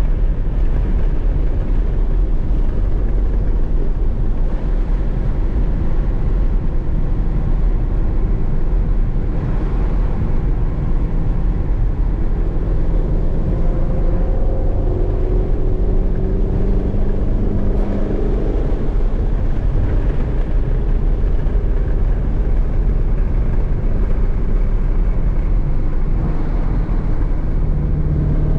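Ford Mustang Shelby GT350's 5.2-litre flat-plane-crank V8 running hard at speed, heard from inside the cabin together with road and tyre noise. The loud, steady drone shifts in pitch with the revs, most clearly about halfway through and near the end.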